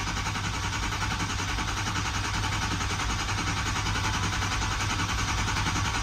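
Ford 6.0 Power Stroke V8 turbodiesel being turned over on the starter in a long, steady crank without firing yet. The high-pressure oil system is pumping back up after being opened for a new IPR valve, with air still in it, which makes for the long crank.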